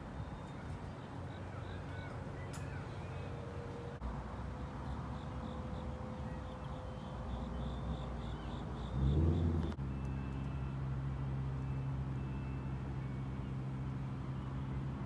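Outdoor ambience: crows cawing now and then over a steady low mechanical hum that grows stronger about ten seconds in. There is a brief louder low rumble just before that.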